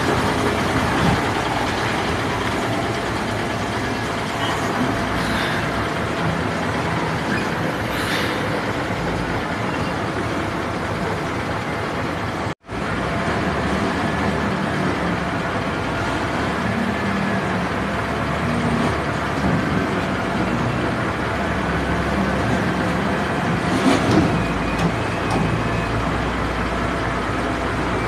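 Steady running of heavy diesel yard vehicles, a container truck and a container forklift, with no pauses except a brief dropout about halfway through.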